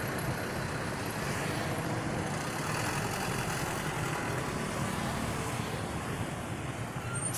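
Steady roadside traffic noise from passing vehicles, with no horn sounding.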